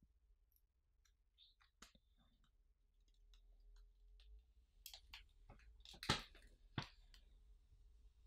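Faint clicks and taps of a phone box and its packaging being handled, growing busier past the middle, with two sharper knocks about six and seven seconds in.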